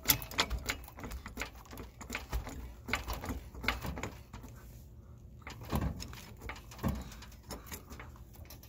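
Jack being pumped by its long handle to lift the front of a pickup truck: a string of sharp clicks and knocks with each stroke, thinning out after about four seconds, then a couple of heavier clunks.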